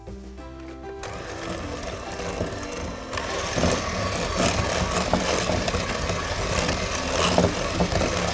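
Electric hand mixer running, its beaters whirring through a butter, sugar and egg mixture in a glass bowl. The motor comes in about a second in and gets louder about three seconds in, with scattered clicks.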